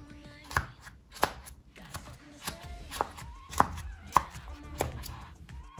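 Bubbles of a homemade heart-shaped pop-it fidget toy being pressed in one after another with a fingertip, making a string of short pops, roughly one or two a second.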